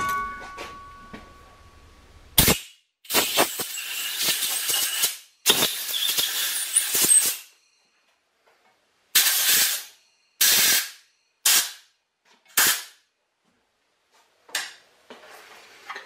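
Compressed-air blow gun blowing out the freshly oiled threaded bolt holes of an arbor press. After a sharp click, it gives two long hissing blasts of about two seconds each, then five short puffs.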